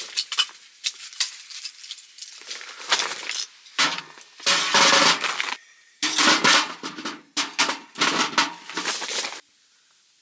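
Split firewood clattering and knocking as pieces are taken from a pile and stacked into a metal wood stove's firebox: a run of sharp wooden knocks with several dense bursts of clatter. It stops abruptly near the end.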